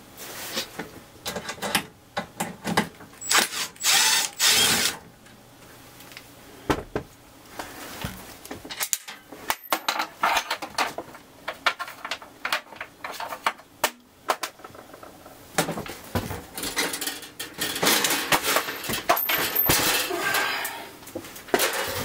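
Cordless drill-driver spinning in short runs as it backs out the screws holding the metal cover on a breaker panel, with clicks and knocks between the runs.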